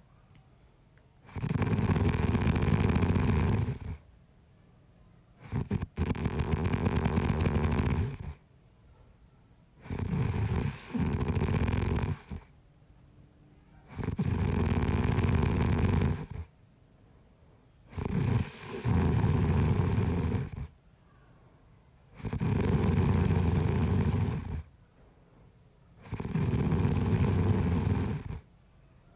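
A sleeping man snoring in a steady rhythm: seven long snores, each about two and a half seconds, one every four seconds or so, with quiet pauses between.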